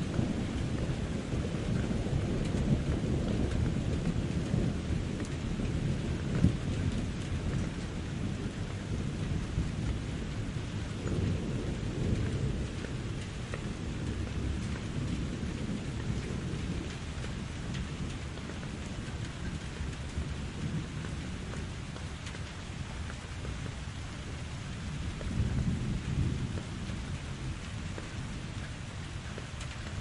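Steady rain with low, rolling thunder. The rumble is heavier in the first half and swells again near the end.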